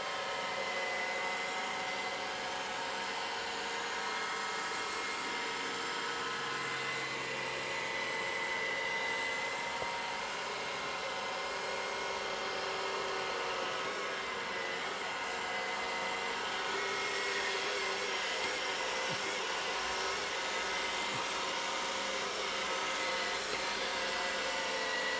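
Robot vacuum cleaner running on carpet: a steady motor whine with a high tone over its suction hiss.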